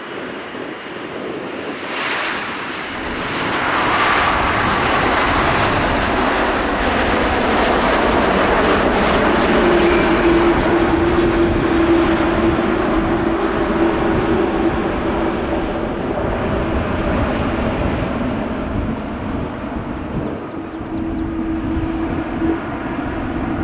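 Boeing 777-300ER's GE90 turbofans on the landing rollout. The engine noise swells to a loud roar about two to four seconds in and holds for much of the rollout before easing off, the pattern of reverse thrust being applied and then cancelled as the airliner slows. A steady hum sits under the roar in the middle and again near the end.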